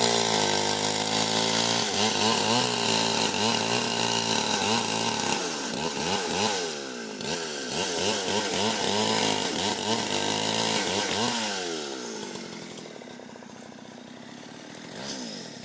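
Old, worn two-stroke chainsaw running hard, its engine pitch rising and falling again and again. About twelve seconds in it drops back to a quieter idle, then revs up briefly near the end.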